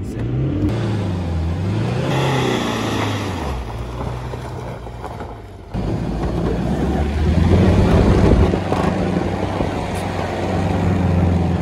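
Car engine labouring on a rough dirt mountain track, its pitch rising and falling over the first few seconds as the manual gearbox is worked. About six seconds in the sound jumps louder, with the engine pulling steadily over tyre noise on dirt and stones.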